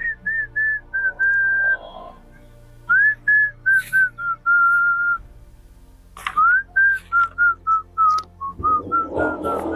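A man whistling a tune in three phrases of short notes, each phrase opening with an upward slide and then stepping down in pitch. A rushing noise joins near the end.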